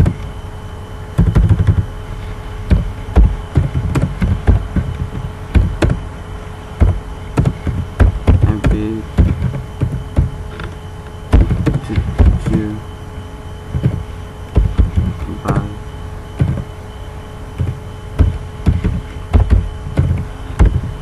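Computer keyboard typing: irregular runs of key strikes close to the microphone, each a sharp click with a dull knock, with a faint steady hum underneath.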